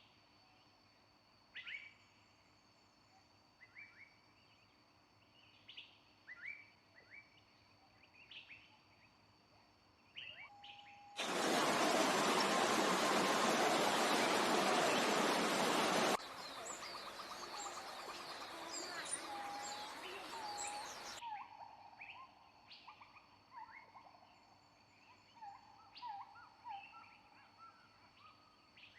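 Wild birds calling with short, repeated chirps. About eleven seconds in, a loud even hiss breaks in for about five seconds, followed by a denser chorus of many birds calling before the sparse chirping returns.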